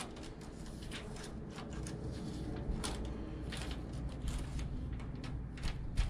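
Scattered light clicks and scrapes, irregularly spaced, over a steady low rumble, with one sharper click near the end.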